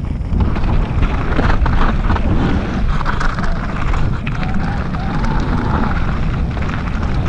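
Wind buffeting the microphone over a mountain bike's tyres rolling fast on loose gravel and rocks, with sharp rattles and clicks from the bike over bumps.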